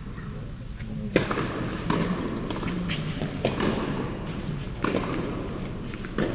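Tennis balls knocking in an indoor tennis hall: about half a dozen sharp, irregularly spaced thuds and pops over a steady room background, the loudest about a second in.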